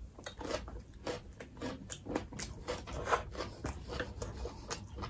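Close-up mouth sounds of chewing a fresh Vietnamese spring roll of rice paper, shrimp, pork and lettuce: soft wet chewing with small crunches of the fresh greens, several strokes a second.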